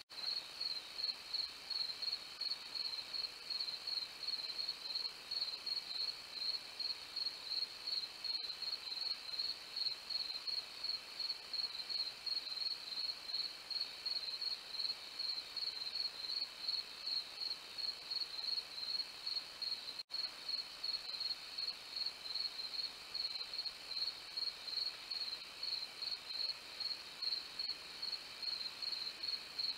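Crickets chirping in a steady, regular high-pitched pulse, a few chirps a second. The sound drops out for an instant about twenty seconds in.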